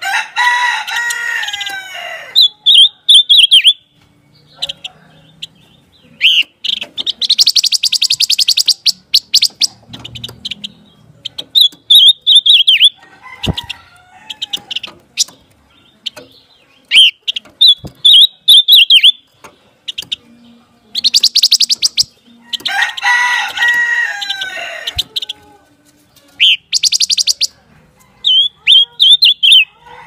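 Silver-eared mesia singing: repeated phrases of quick whistled notes and fast buzzy trills, with pauses of a few seconds between them. A longer, lower call with several stacked tones comes near the start and again about 23 seconds in.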